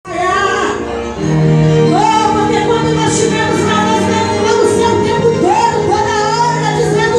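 Gospel song music opening at full level: a melody line with vibrato over sustained chords and bass, with cymbals.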